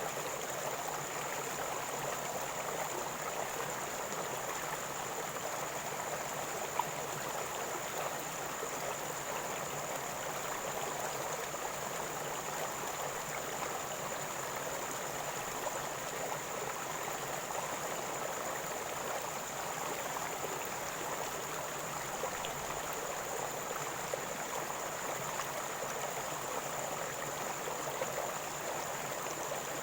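River water gurgling and rushing steadily over a shallow stream bed, an even, unbroken flow.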